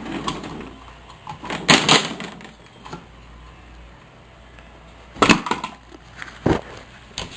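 Electrical boxes and parts being handled and picked through, with hard clattering knocks: a cluster about two seconds in, then single sharp knocks a little past five and six seconds.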